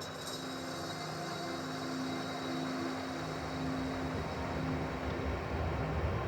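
Ambient soundscape drone: a low, steady rumble with held low tones that swells in level, and a high bell-like shimmer struck at the start that fades away over a few seconds.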